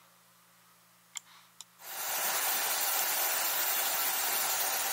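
Near silence with two faint clicks, then about two seconds in a small DIY CNC router starts milling an oak board: a steady spindle-and-cutting noise that holds to the end.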